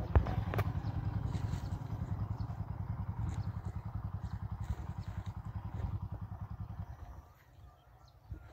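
A small engine puttering at a quick, steady beat, fading away near the end.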